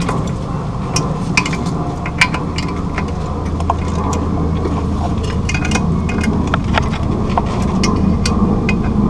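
Irregular metallic clicks and clinks of a hand wrench working the clutch pressure-plate bolts as they are snugged down, with a burst of quick clicks about halfway through. A steady low hum runs underneath.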